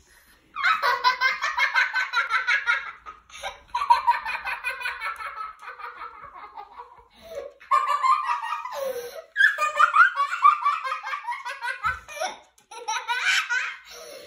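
A young boy laughing hard in long, breathless fits, broken by a few short pauses.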